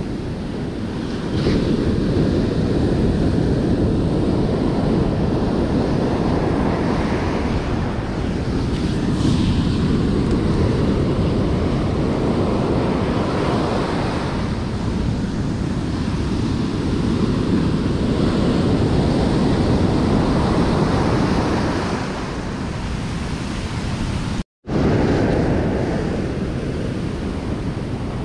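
Ocean surf breaking and washing up a sandy beach in swelling waves, with wind buffeting the microphone. The sound cuts out for a split second near the end.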